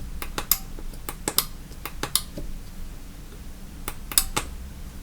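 Sharp clicks in clusters of two or three, about a dozen in all: the buttons of a cheap RF remote clicker being pressed to switch a Sonoff T1 wall switch.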